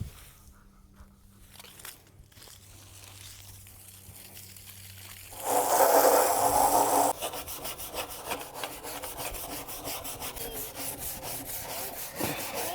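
A stiff brush scrubbing out a chicken waterer. After a few quieter seconds there is a loud rush of noise for about two seconds, then rapid, steady back-and-forth scrubbing strokes.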